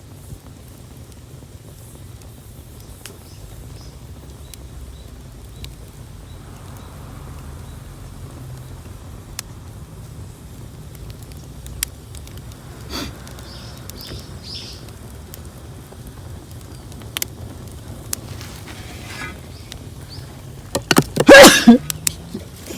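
Brush bonfire burning with a steady low rumble and scattered sharp crackles, and a brief loud burst of noise near the end.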